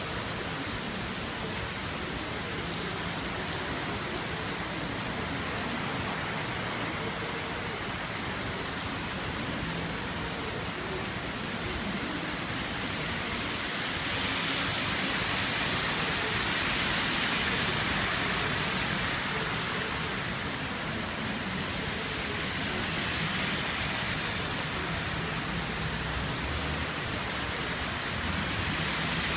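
Heavy typhoon rain falling steadily, swelling louder for several seconds a little past the middle.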